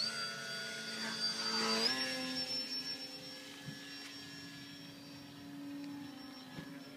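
Remote-control flying lawnmower's motor and propeller whining in flight. The pitch rises sharply at the start, holds steady, steps up a little about two seconds in, then fades as the craft climbs away.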